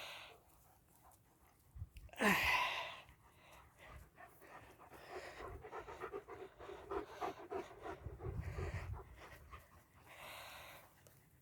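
A German Shepherd panting rapidly in the heat, its quick breaths in a steady run. A short, loud falling sound stands out about two seconds in.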